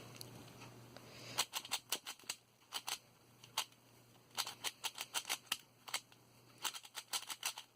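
QiYi Valk 3 3x3 speedcube being turned by hand, its plastic layers clicking in quick runs of turns with short pauses between. The cube is brand new and still a little tight.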